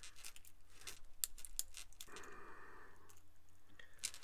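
Small sharp metal clicks and light jingling of stainless steel chainmail rings being handled while the weave is lengthened, thickest in the first two seconds, with a short soft rustle just after and one sharper click at the end.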